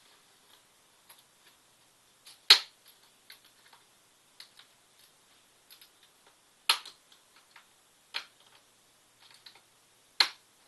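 Plastic screen bezel of a Toshiba Satellite L510 laptop being pried off with a small flathead screwdriver: its snap clips come loose in four sharp clicks, with light ticking and scraping of plastic in between.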